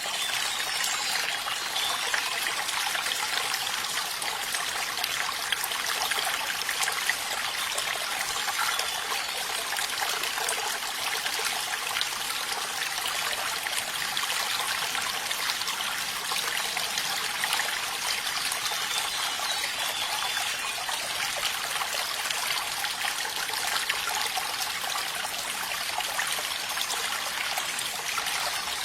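Running water trickling and splashing steadily, like a small stream.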